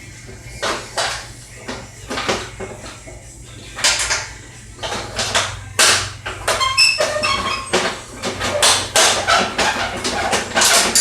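Irregular metal clanks, knocks and rattles of mower parts being handled and pulled apart by hand, a few ringing briefly like struck metal, over a steady low hum.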